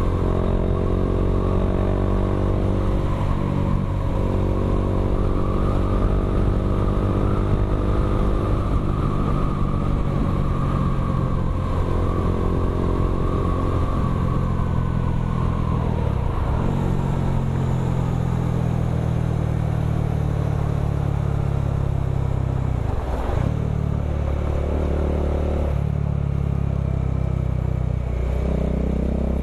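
Bajaj Dominar 400's single-cylinder engine running through an aftermarket Akrapovic M1 slip-on exhaust, a steady, bassy exhaust note while riding. The engine pitch drops and picks up again twice in the second half, as with gear changes.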